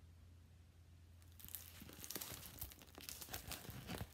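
Plastic-covered diamond painting canvas crinkling and crackling as it is handled and flexed, starting about a second and a half in and going on in a quick run of crackles.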